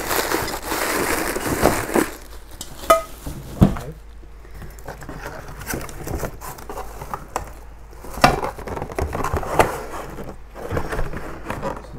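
Calphalon nonstick pots, pans and lids being unpacked and handled: packaging crinkling for the first two seconds, then scattered knocks and clinks of cookware being set down, one with a brief ring about three seconds in.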